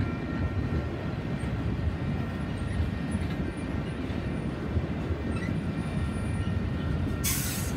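Freight train of autorack cars rolling past: a steady rumble of wheels on rail, with a few faint steady high tones. A brief hiss comes near the end.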